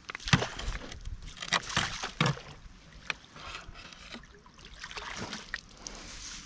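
Water splashing and sloshing as a landing net holding a small carp is dipped into the lake to release it. The splashes are heaviest in the first two seconds or so, followed by a few softer knocks and sloshes.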